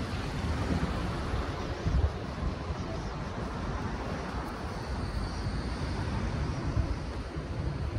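Steady outdoor street noise: a wash of traffic with wind rumbling unevenly on the microphone.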